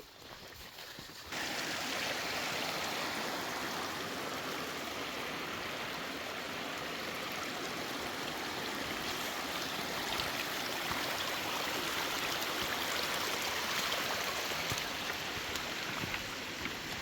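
A creek's water rushing steadily, starting abruptly about a second in.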